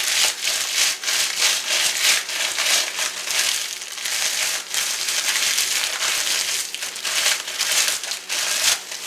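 Ritz crackers being crushed by hand inside their plastic sleeve: a continuous run of irregular crunching and crackling from the crackers, mixed with the crinkle of the plastic wrapper.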